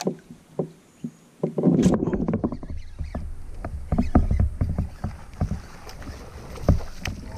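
Knocks and bumps of gear against a plastic fishing kayak's hull as the angler handles his rod and paddle. A few isolated clicks come first; about one and a half seconds in, a low rumble starts under a run of sharp knocks.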